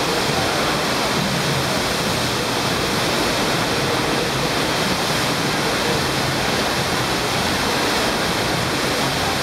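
Steady rushing of a thin sheet of water pumped at high speed up the slope of an indoor standing-wave surf simulator, like a waterfall, with a faint steady high tone under it.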